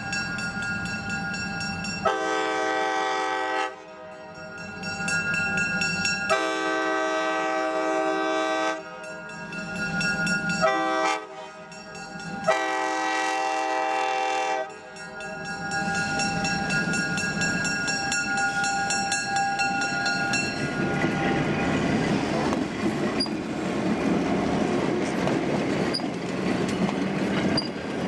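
Train air horn sounding a chord in four blasts, long, long, short, long: the signal sounded at a grade crossing. The train then runs past with a steady clatter and rumble of its wheels on the rails.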